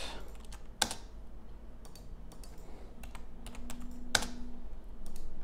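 A few scattered key presses on a computer keyboard, with the two loudest clicks about a second in and about four seconds in.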